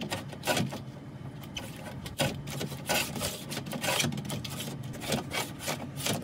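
Metal-framed sliding screen door being pushed along its track, its rollers scraping and clattering in uneven jerks. It still runs roughly despite WD-40 on the wheels and tracks.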